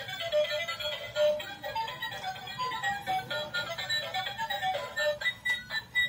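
Tinny electronic melody from a battery-operated toy auto rickshaw's built-in speaker, playing while the toy drives about with its lights flashing. Near the end the tune breaks into short, clipped notes.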